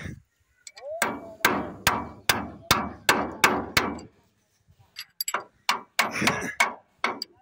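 Hammer blows on a steel drift held against the gear train of a ZS1115 diesel engine: about eight strikes at a steady pace, a little over two a second, each ringing briefly. Then lighter irregular metal clinks as tools work on the gears.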